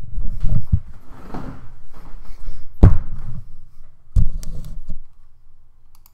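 A few thuds and knocks from someone moving about and handling things in a small room, with scuffling between them; one sharp knock about three seconds in is the loudest, and the sounds die away in the last second or so.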